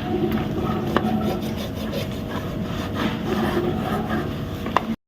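Cloth rubbing steadily over a ceiling fan's outer cover as it is wiped down, with a couple of light clicks; the sound cuts off abruptly just before the end.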